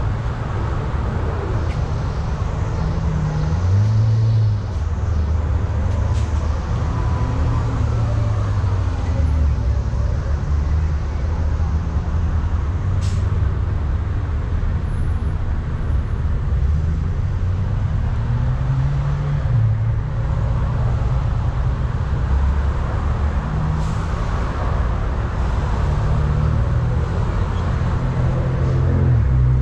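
Steady low rumble of motor vehicles on a street, with faint voices now and then and a couple of brief clicks.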